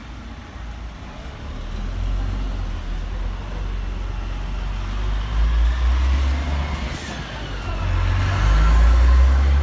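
Heavy tanker truck driving past close by, its engine rumbling low and growing loudest near the end as it draws alongside.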